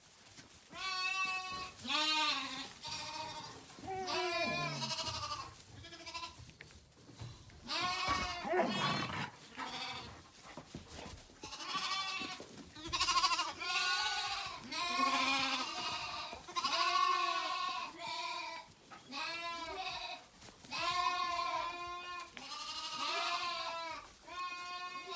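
Several Zwartbles lambs bleating over and over, their calls quavering and overlapping one after another, as they clamour to be bottle-fed.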